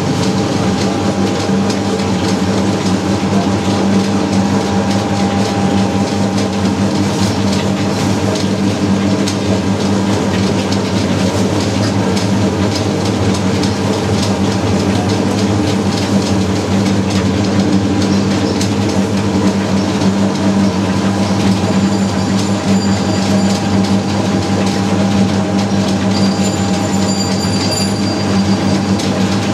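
Electric naswar-making machine running: a steady motor hum with a continuous mechanical rattle as it works the tobacco paste in its drum.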